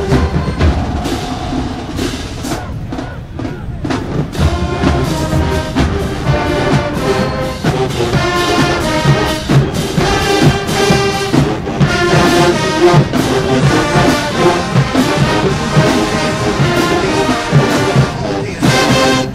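HBCU marching band playing at full volume: a brass section carries the tune over a steady marching drum beat.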